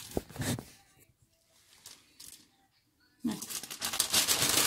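A sheet of wrapping crinkling and rustling loudly as a lump of cookie dough is wrapped up, starting suddenly about three seconds in after a near-quiet pause.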